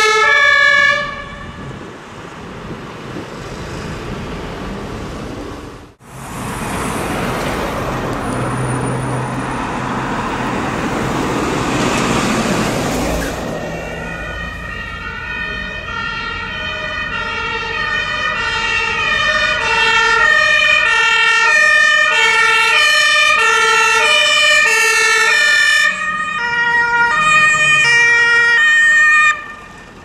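German two-tone emergency-vehicle sirens (Martinshorn) on fire engines and an ambulance. A two-tone siren stops about a second in, and a heavy vehicle rumbles past. From about halfway a two-tone siren alternates steadily between a high and a low note, growing louder as it approaches, then cuts off just before the end.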